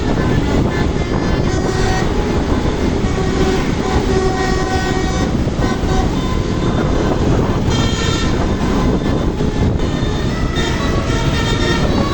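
Telolet basuri musical bus horn sounding a run of changing notes over a loud, steady rumble of engine and road noise.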